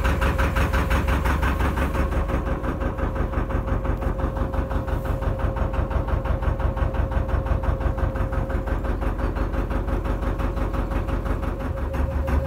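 Narrowboat's diesel engine running with a steady, even beat, a steady tone above it. The low beat eases a little about two seconds in and picks up again near the end.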